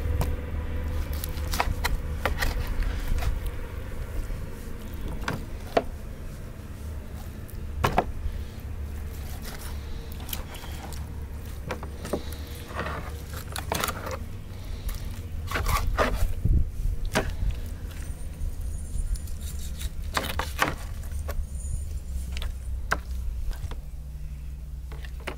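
A knife cutting a raw whole chicken into pieces on a plastic cutting board: irregular knocks, taps and scrapes of the blade on the board and through the joints, over a steady low rumble.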